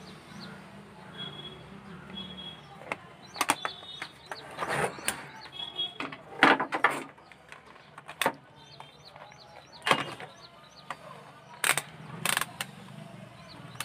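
Scattered sharp clicks and knocks of handling at a workbench, about a dozen spread irregularly: a circuit board and tools being moved, and near the end a digital multimeter picked up and its rotary dial turned.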